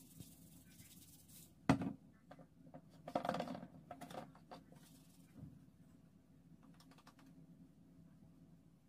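Light clicks and taps of seasoning containers handled and shaken while raw steaks are salted and seasoned. One sharp click comes about two seconds in, then a second or so of quick rattling clicks, then a few faint ticks.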